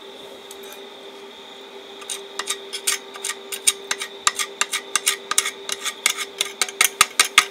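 A thin 1.6 mm welding rod is tapped and scratched against a thin steel bracket in repeated tries to strike an arc with an inverter stick welder. From about two seconds in there is a run of irregular sharp clicks over a steady hum, while the arc fails to catch.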